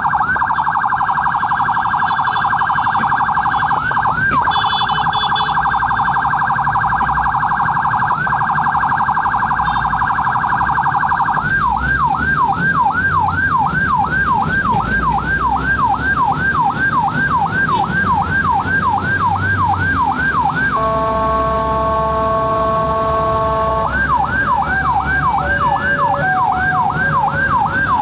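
An ambulance's electronic siren sounding while the vehicle drives. It starts as a very fast warble. About a third of the way in it changes to slower rising-and-falling whoops, about two and a half a second. A steady horn blast lasts about three seconds, then the whoops resume, all over engine and road rumble.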